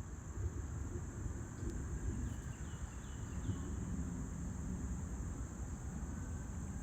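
Outdoor summer ambience of insects droning steadily at a high pitch over a low rumble, with four faint short chirps a little past two seconds in.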